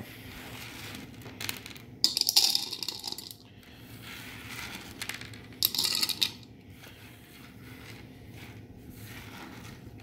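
Loose shelled grain corn kernels swept and gathered by hand across a hard tabletop, clattering and clicking against each other, in two short bursts about two seconds in and near the middle.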